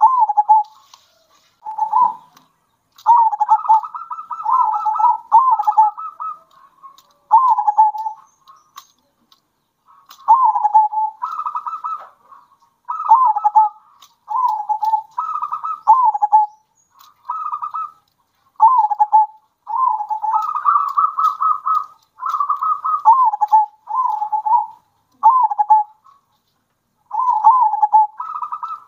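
Zebra doves (perkutut) cooing: phrase after phrase of short, quick coo notes that step up and then down in pitch, with brief pauses between phrases.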